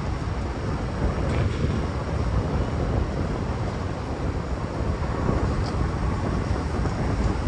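Steady low rumble of city traffic with wind buffeting the phone's microphone, and a few faint ticks.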